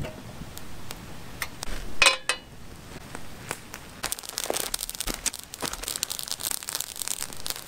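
A steel frying pan set down on a camp stove's grate with a ringing clank about two seconds in. From about four seconds on, a campfire of spruce boughs crackling and popping.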